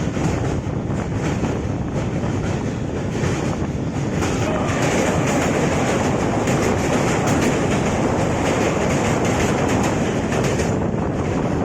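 Indian Railways LHB passenger coach running at speed: a steady rumble of wheels on rail with a fast, dense clatter. The clatter grows busier and brighter from about four seconds in.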